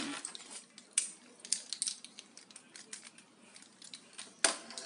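Light clicks and rattles of USB flash drives being handled and swapped at a laptop's port, with one sharper, louder click near the end.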